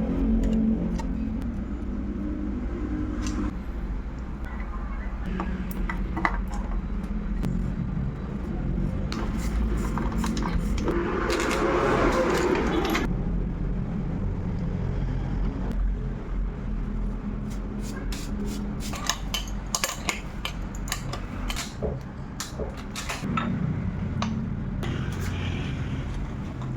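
Scattered metal clicks and clinks, as of tools and small bicycle parts being handled, over a steady low rumble like nearby traffic, with a louder stretch of noise about halfway through.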